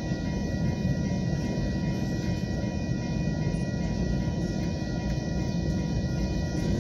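Freight train of coal hopper cars rolling past a grade crossing: a steady low rumble of wheels on rail, with the crossing signal's bell ringing steadily over it.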